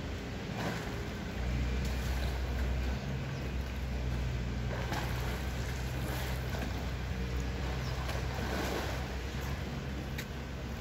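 Water splashing and sloshing as polar bear cubs swim and tussle in a pool, with a few short splashes over a steady low rumble.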